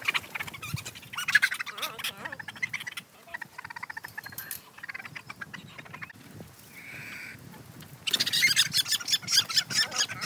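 Silkie chickens squawking in alarm as they are chased and grabbed, in bursts, with one short held call midway, then louder and nearly continuous near the end.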